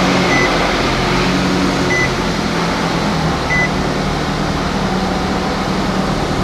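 2017 Nissan Rogue engine idling steadily just after starting, freshly refilled with oil, with an in-car warning chime beeping three times in the first few seconds.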